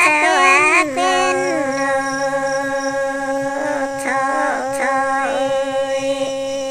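A woman singing a Red Dao folk song in a single voice: a few sliding, ornamented phrases, then one long held note from about a second and a half in, decorated with small wavering turns.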